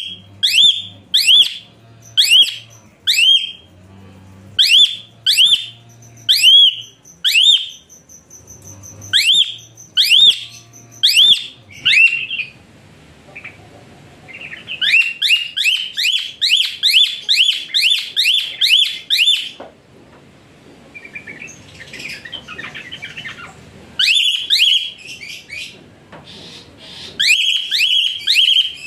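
A songbird calling over and over, each note a sharp rising whistle that hooks over at the top. The notes come in short groups of about two a second for the first twelve seconds, then in a quicker even run of about three a second. After a pause with softer scattered chirps, two more short groups follow near the end.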